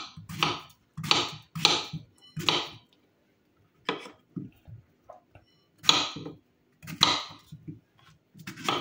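Kitchen knife slicing peeled plantain into rounds on a wooden cutting board: a sharp knock each time the blade goes through and hits the board. The knocks come in quick succession for the first few seconds, then more spaced out.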